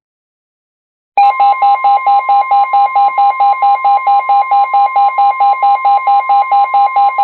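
NOAA Weather Radio alert starting about a second in. A steady 1050 Hz warning alarm tone sounds under a receiver's pulsing alarm beeps, about four a second. Together they signal the start of a new severe thunderstorm warning.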